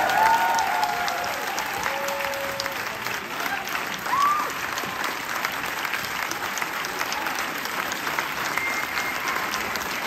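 Theatre audience applauding steadily, a dense patter of many hands clapping. A few whoops and cheers rise over it in the first few seconds, and one more about four seconds in.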